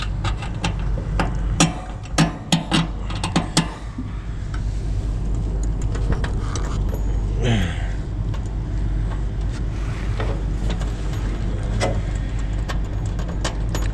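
Metal clinks and knocks of hand tools on metal as bolts are tightened on the compressor mounting, in a quick cluster a couple of seconds in, over a steady low hum.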